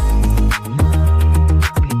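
Background electronic music with a steady beat and heavy sustained bass notes.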